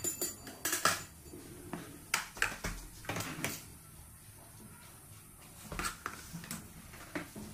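Metal palette knife scraping and clicking against a cake's whipped-cream icing as it is smoothed: a handful of short scrapes and taps, with a pause in the middle.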